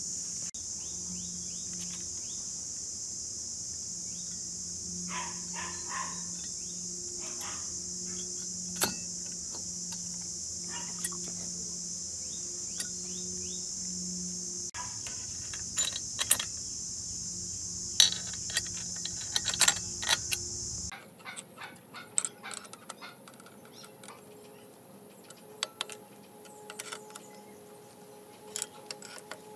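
Scattered sharp metal clicks and clinks as the aluminium cylinder head and pushrods of a small four-stroke generator engine are handled and fitted, over a steady high-pitched insect drone.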